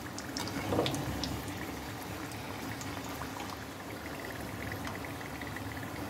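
Samosas deep-frying in hot oil over medium heat: a steady bubbling sizzle. A metal slotted spoon clicks against the pan a few times in the first second or so.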